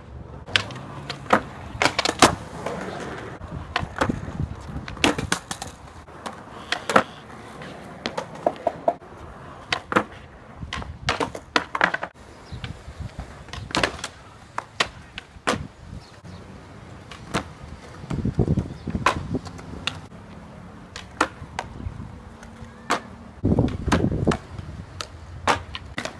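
Skateboard wheels rolling on concrete, broken by many sharp clacks and pops of the deck and tail striking the ground and a concrete box during repeated ollie-to-manual attempts.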